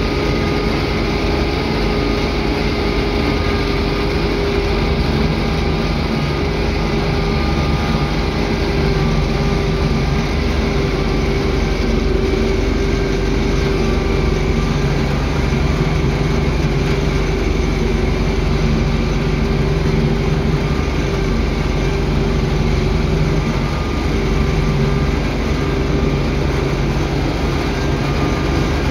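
UTB Universal U650 tractor's four-cylinder diesel engine running steadily, heard from inside the cab.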